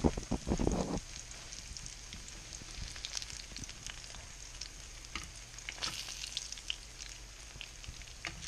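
Redfish pieces frying in hot oil in a stainless skillet: a steady sizzle with scattered crackling pops. There is a brief louder knock in the first second.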